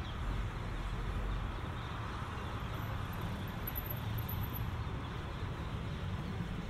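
Steady city street ambience: a low rumble of traffic under an even wash of noise, with no distinct events standing out.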